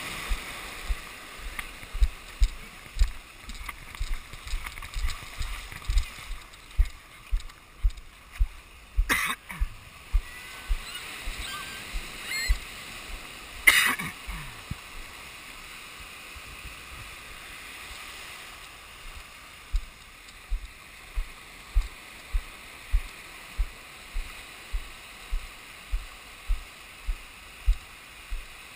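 Shallow surf washing around a GoPro held at the waterline: a steady wash of water with frequent short, low thuds, and two sharper splashes about nine and fourteen seconds in.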